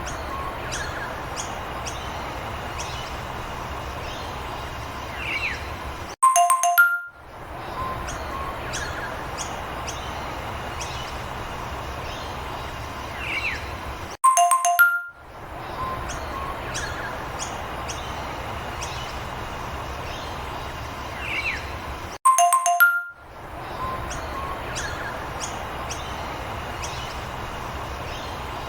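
A short bright ding-dong chime, then a steady outdoor ambience with birds chirping, repeated as a loop about every eight seconds, with a brief silence just before each chime.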